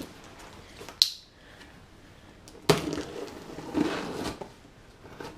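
Knife cutting open a cardboard shipping box: a sharp click about a second in, then a longer stretch of scraping and cutting through the tape and cardboard.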